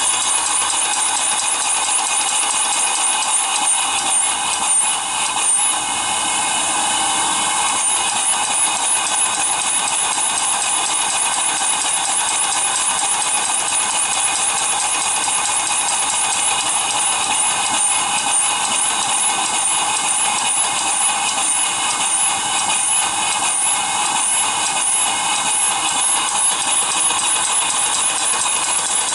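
Small steam engine converted from a well pump, running steadily with a loud hiss of steam while it turns a belted car alternator. Once the alternator is excited to charge, the engine lacks the power to keep up its speed and slows.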